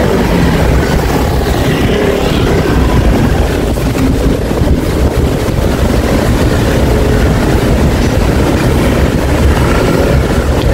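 Loud, steady wind rumble buffeting a bicycle-mounted camera's microphone while riding, mixed with city street traffic.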